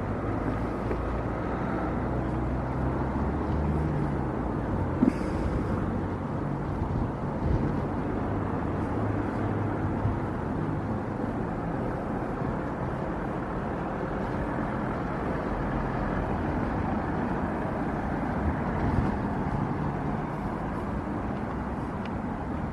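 Street traffic ambience: a car engine hums nearby over steady road noise, with one short sharp knock about five seconds in.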